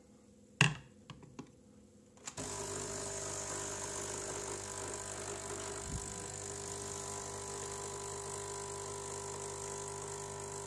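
A glass clinks onto the machine's drip tray, followed by a few light clicks. About two seconds in, a Dolce Gusto capsule machine's pump starts and runs steadily, brewing espresso from a capsule into the glass.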